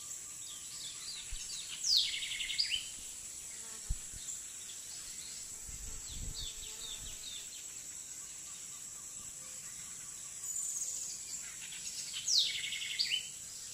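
Outdoor nature ambience: birds chirping, with a loud descending, stuttering trill about two seconds in and again near the end, over a steady high-pitched insect drone.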